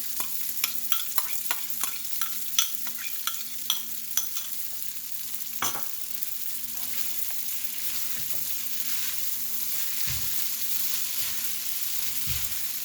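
Garlic noodles frying in a hot pan, sizzling steadily while being stirred and tossed with a spoon. The spoon clicks and scrapes against the pan over the first six seconds, with one sharper knock about halfway through. A few low thumps come near the end.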